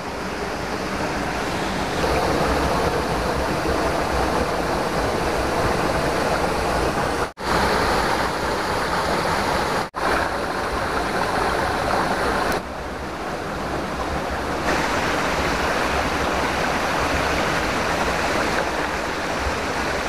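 Shallow stream water running and splashing over rocks in a steady, dense rush. The sound cuts out for an instant twice, about seven and ten seconds in.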